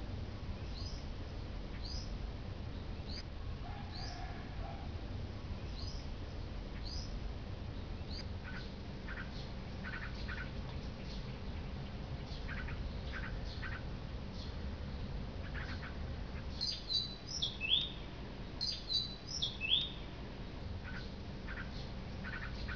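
Birds calling: a short, high, falling chirp repeated about once a second, joined after a few seconds by lower short notes. About three quarters of the way through comes a louder run of quick high calls. All of it sits over a steady low background rumble.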